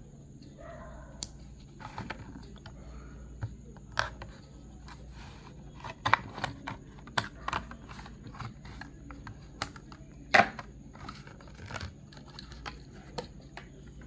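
A Hot Wheels blister pack being cut open with a folding knife: irregular clicks, crackles and scrapes of stiff plastic and card, with one louder snap about ten seconds in.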